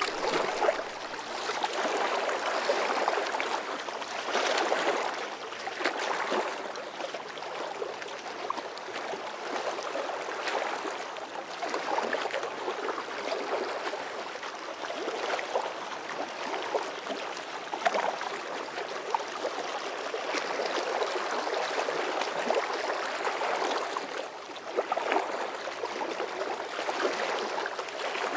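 Flowing river water: a steady rushing wash that swells and eases now and then.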